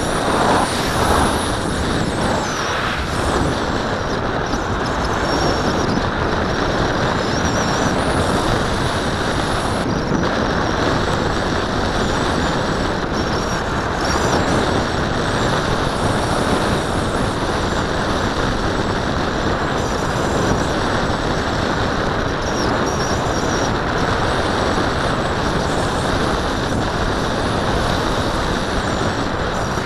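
Steady rush of airflow over an RC glider's fuselage and the onboard camera's microphone in gliding flight, with faint high whistles coming and going.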